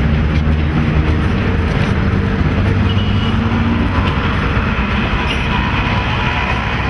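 Passenger train rolling slowly through a station yard: a steady, loud low rumble.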